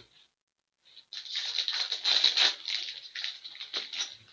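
Crinkling and rustling of trading-card packaging and cards being handled, a dense crackle that starts about a second in, is loudest around the middle and thins out near the end.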